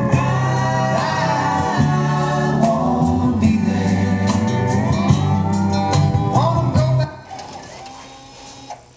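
Song with a singing voice and instrumental backing playing loudly over the truck's cab stereo, cut off suddenly about seven seconds in.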